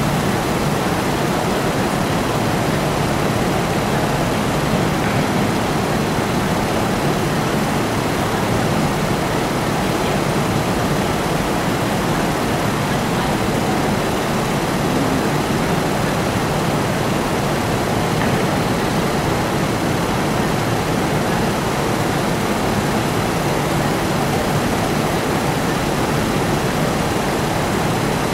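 Steady, even rushing noise that never changes in loudness, with no separate knocks or footfalls standing out.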